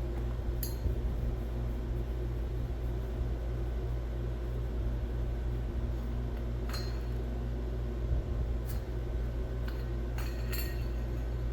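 A few light metallic clinks, spaced out, with a quick pair near the end, over a steady low hum: metal tools and parts being handled during engine work.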